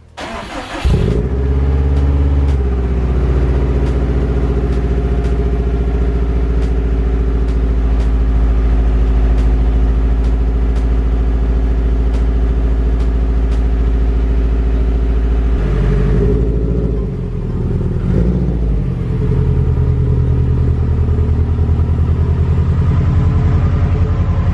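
A 2005 Subaru WRX STI's turbocharged flat-four engine starts about a second in and idles steadily. About sixteen seconds in the engine note changes and dips briefly, then settles again, as the car is driven out of the garage.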